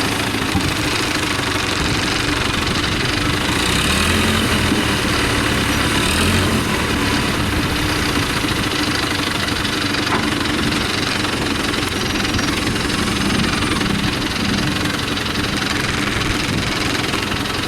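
Construction vehicle's engine running steadily at idle.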